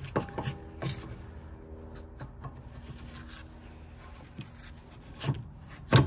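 Rear brake caliper being worked back over new pads onto its carrier by hand: light metal clicks and scrapes, with a sharper knock near the end as it seats.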